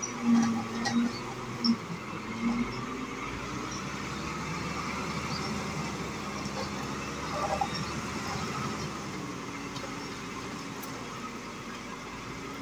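Nissan dump truck's diesel engine running steadily while its hydraulic hoist raises the tipper bed and the load of dirt slides out, with a few short louder pulses in the first couple of seconds.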